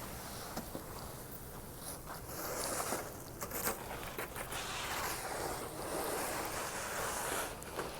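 Wind buffeting the microphone in a snowstorm, a rough rustling that swells and eases, with a few faint knocks.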